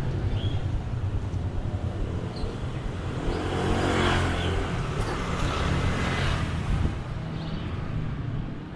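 Motor vehicle engine running close by in street traffic. One vehicle passes near about three seconds in; its noise swells to a peak and fades again by about six and a half seconds.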